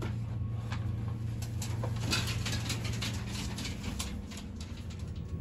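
Clicks and rattles of an old elevator's brass collapsible scissor gate being pulled open by hand, strongest in the middle, over a steady low hum.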